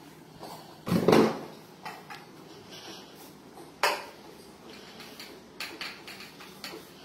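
Stainless steel kitchen vessels clanking and scraping as powder is scooped with a steel tumbler and tipped into a steel basin. There is a louder rattle about a second in, a sharp clack near four seconds, then lighter taps.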